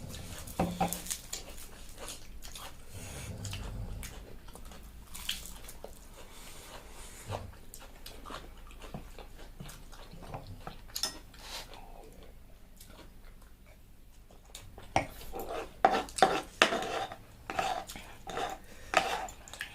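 Eating utensils clinking and scraping against bowls and plates. Short taps are scattered throughout, and a quick run of louder clinks comes in the last five seconds.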